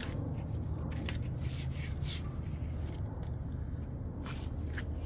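Household scissors being handled, giving a few scattered clicks and scrapes, over a steady low rumble.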